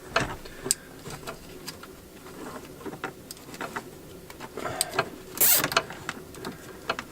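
Scattered light clicks, taps and rustles of zip ties and wiring being handled, with one louder short rasp about five and a half seconds in.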